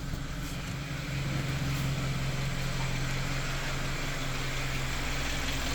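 Hyundai Sonata engine idling evenly just after a restart, settling about a second in, with no ticking in it. The owner takes this as a sign that the tick-tick noise at idle has cleared after he held the engine above 3000 rpm for three to four minutes.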